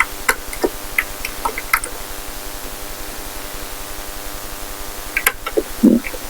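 Scattered light metallic clicks and taps from a small vintage cabinet lock and its key being handled, a cluster in the first two seconds and another near the end, over a steady electrical hum.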